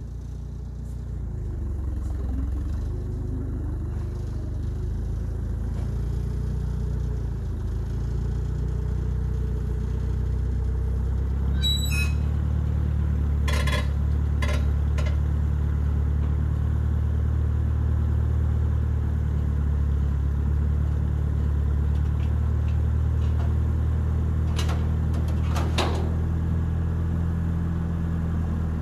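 A vehicle engine running steadily at low speed, building up over the first couple of seconds, with a few short metallic clicks and clanks around twelve to fifteen seconds in and again near the end.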